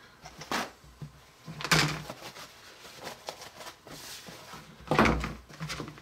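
Hard plastic parts of a microwave Rice Krispies Treats maker being handled and set down on a tabletop: a few sudden knocks and clatters, the loudest about five seconds in.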